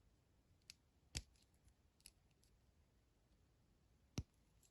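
Near silence broken by a few short clicks of small plastic parts being handled, the two sharpest about a second in and near the end.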